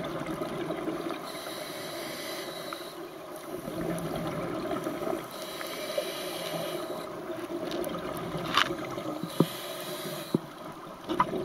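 Scuba diver breathing through a regulator underwater, heard through a camera's underwater housing: a hiss on each inhale about every four seconds over a steady rumble and gurgle of exhaled bubbles, with a few sharp clicks near the end.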